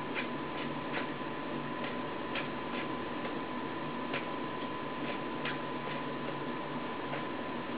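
Nao humanoid robot's head servos clicking lightly and irregularly, about one or two ticks a second, as the head makes small gaze shifts. Under the clicks runs a steady hiss with a thin, steady high whine.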